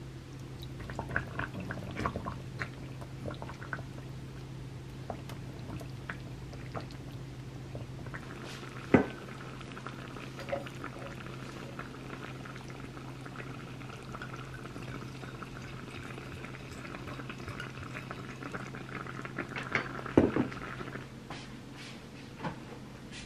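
Wooden spatula stirring melting cheese in a ttukbaegi clay pot, light scrapes and taps over a steady low hum. About nine seconds in a sharp knock, then a long steady pour of white wine into a glass, and a few knocks near the end.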